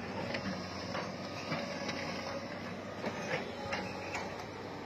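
Excavators running at a demolition site, a steady machine noise with a faint thin whine, broken by irregular clanks and knocks of concrete and timber debris being moved.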